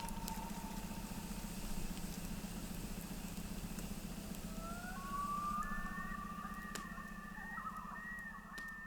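Common loons wailing on the lake: long, held, slightly wavering notes that rise and overlap in the second half, over a steady low pulsing drone.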